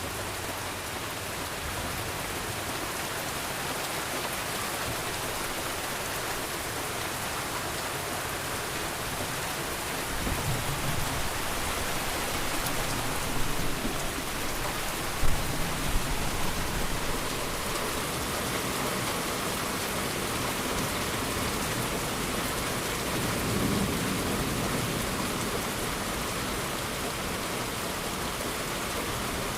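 Steady heavy rain falling with an even hiss. Thunder rumbles low from about a third of the way in, with one sharp crack near the middle, and a softer rumble follows later on.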